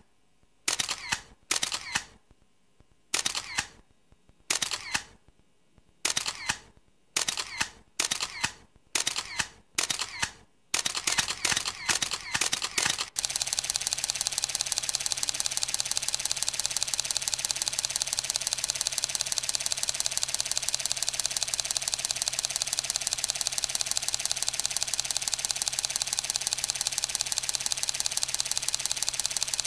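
Mechanical clicking, like camera shutters: separate sharp clicks, each trailing off, come closer together over the first dozen seconds. About thirteen seconds in they give way abruptly to a continuous rapid mechanical clatter that runs on steadily.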